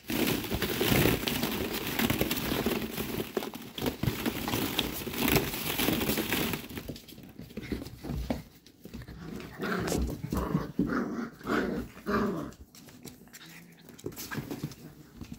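Goldendoodle puppies play-fighting: a dense scuffle of bodies and paws on a hardwood floor for the first several seconds, then a run of short puppy calls about ten seconds in.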